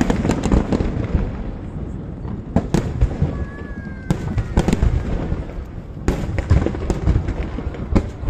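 Aerial fireworks display: many shells bursting with bangs and crackling in quick succession. The barrage thins for a couple of seconds a little way in and grows dense again near the end.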